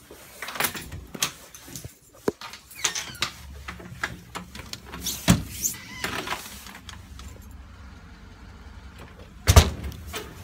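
Clicks, knocks and rustling of a phone being handled while carried, over a low steady rumble, with one loud thump about a second before the end.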